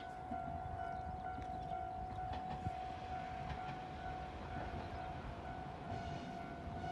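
A steady high-pitched tone, held without change in pitch, over a low outdoor rumble.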